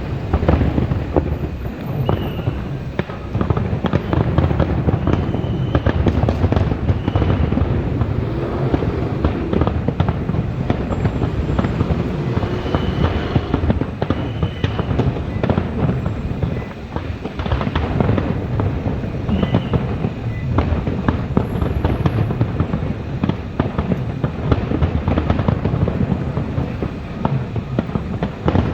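Fireworks display: a continuous barrage of rapid bangs and crackling, with a few brief high whistles.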